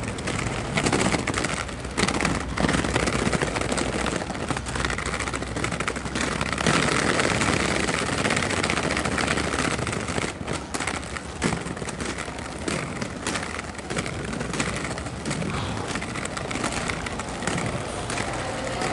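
Roller skate wheels rolling over a rough road surface: a steady rush of noise scattered with many small clicks and rattles, swelling about a third of the way in.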